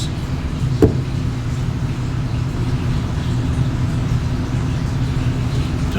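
Steady low machine hum, with one short knock just under a second in.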